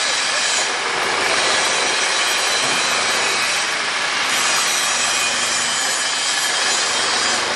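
Steady, even rasping noise of crane machinery running while it holds an open single-rope grab bucket, with no pauses or distinct knocks.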